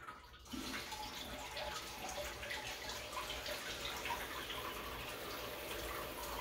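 Water running steadily into the toilet, through the newly fitted bidet seat's supply line. It picks up again about half a second in, after a brief lull.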